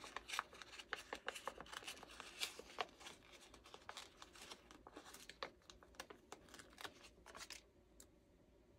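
Faint rustling and light clicks of a paper sticker sheet being handled as a small sticker is peeled off its backing. The sounds die away about three-quarters of the way through.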